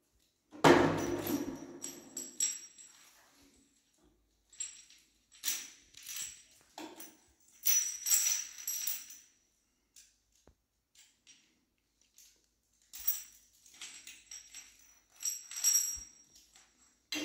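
Plastic hand shower spray parts and their moulded plastic packaging tray being handled: scattered clicks, knocks and light jingling rattles as pieces are lifted out, with a louder knock about a second in.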